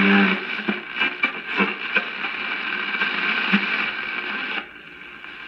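1953 Crosley JT-3 AM tube radio's speaker hissing and crackling with static and a few steady whistles as the tuning dial is turned between stations. The static drops to a quieter background about four and a half seconds in.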